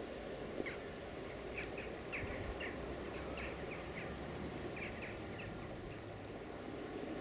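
Small birds chirping: a string of short, high chirps for several seconds, thinning out near the end, over a steady low hum of outdoor background noise.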